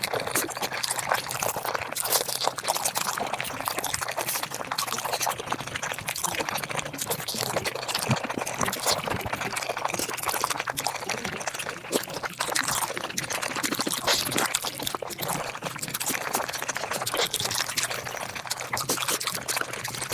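Mukbang eating sounds sped up about five times: a fast, unbroken stream of wet chewing, smacking and slurping close to the microphone.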